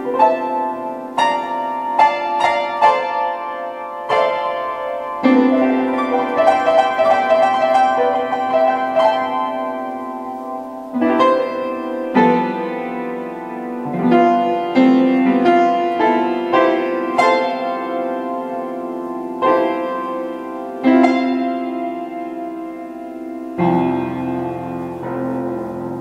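Piano played alone, with no voice: struck chords and melody notes every second or two, each left to ring, and a lower, fuller chord near the end.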